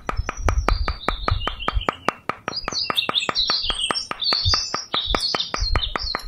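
Birds chirping over a steady, fast ticking of about six ticks a second, with a few dull low thuds in between.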